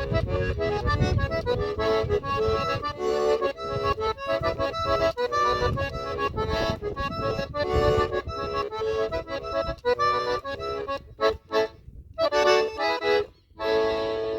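Freshly repaired accordion being play-tested with a lively forró tune: melody chords over pulsing bass notes, breaking into short clipped chords near the end before it stops.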